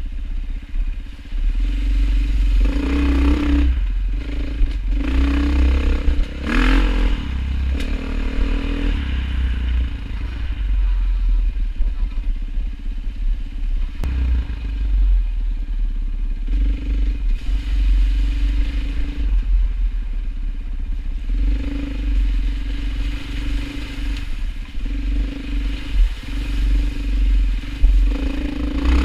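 An engine running on the move, its note coming and going in stretches, over a heavy low rumble with occasional clatter.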